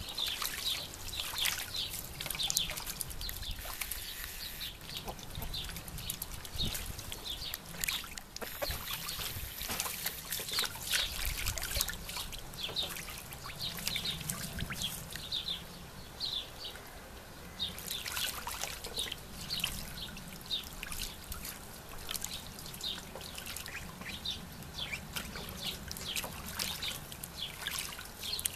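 Ducks bathing in a shallow water-filled trough: water splashing and sloshing as they dip and shake, many small irregular splashes with drips and trickles throughout.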